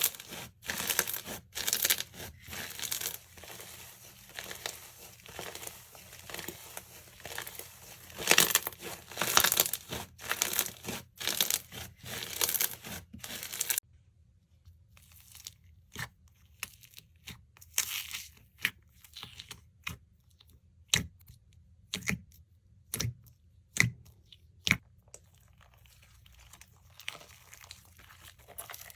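Slime being kneaded, stretched and squished by hand, giving dense crackling and sticky tearing pops. About halfway through, the sound cuts to sparser, separate pops and clicks.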